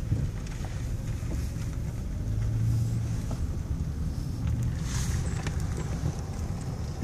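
Car cabin noise while driving slowly: a steady low engine and tyre rumble.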